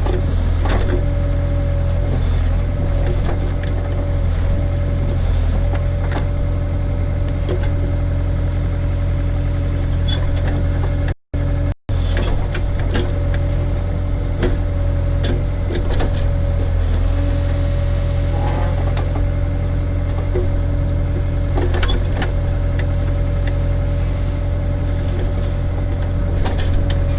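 Case/Davis D100 backhoe's engine running steadily while the bucket digs at a stump, with a steady higher tone over the engine note. The sound cuts out twice, very briefly, about eleven seconds in.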